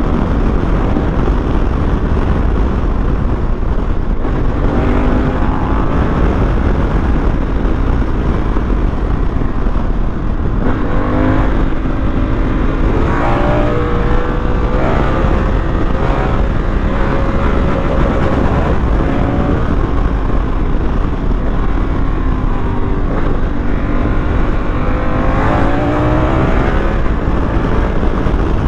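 Honda Africa Twin motorcycle engine under way in traffic, revving up and easing off several times, its pitch rising with each pull, over a constant rumble of wind on the microphone.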